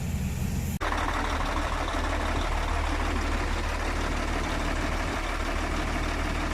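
Mercedes-Benz Actros truck diesel engine idling steadily, an engine the mechanic says misfires and has lost power. An abrupt cut comes about a second in, after which the idle sounds louder and closer.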